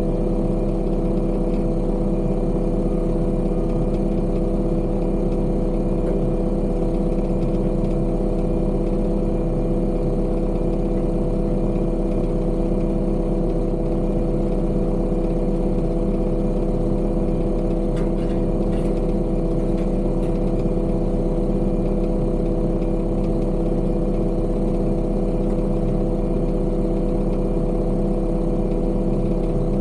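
Heavy construction machine's diesel engine running at a steady, unchanging speed, with a few faint clicks about two-thirds of the way through.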